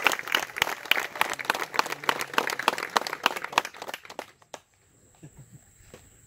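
Crowd of spectators clapping, the applause dying away about four seconds in.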